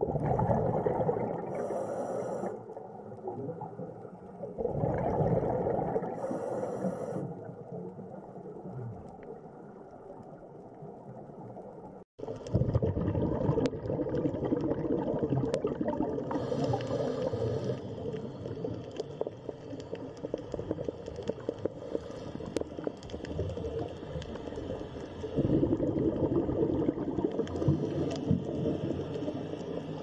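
Underwater bubbling and gurgling rumble in surges every few seconds, each ending in a short high hiss, as from a scuba diver's regulator breathing. After a brief dropout about twelve seconds in, the bubbling runs on almost without a break.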